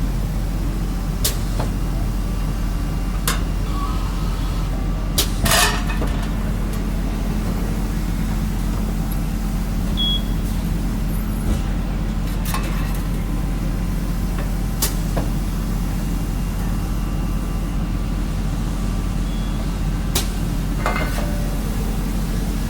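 Amada press brake running with a steady low hum, broken by several short, sharp clicks and knocks spread across the stretch.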